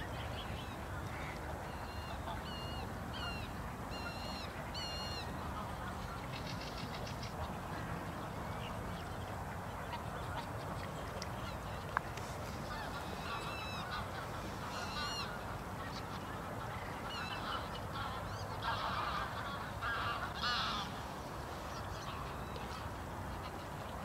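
Waterfowl calling: runs of short, high, squeaky calls, with a louder, harsher stretch of calls about three quarters of the way through, over a steady low rumble. A single sharp click about halfway.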